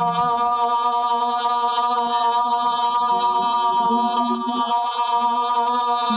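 A woman singing a long, sustained open "ah" vowel on one steady pitch, drawn out on a single exhaled breath as a vocal warm-up exercise.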